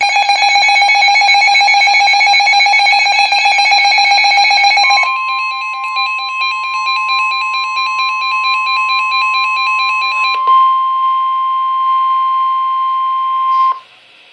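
Emergency alert attention tones, loud and electronic. A rapidly pulsing, buzzy multi-pitch alarm sounds for about five seconds. A steady single high tone then joins it while the pulsing carries on more softly and stops after about ten seconds, and the steady tone holds until it cuts off shortly before the end.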